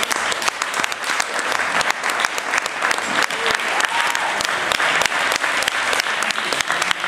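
A roomful of people applauding, many hand claps overlapping densely.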